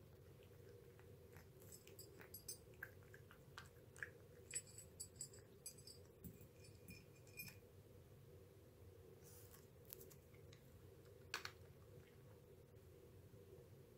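A cat eating from a bowl: faint chewing, heard as a quick run of small clicks over several seconds in the first half and a few sharper clicks later on.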